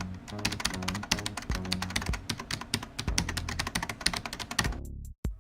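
Fast typing on a mechanical keyboard, a dense run of key clicks, over music with steady low tones; both stop just before the end.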